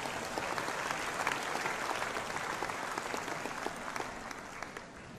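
Audience applauding: many hands clapping steadily, dying down near the end.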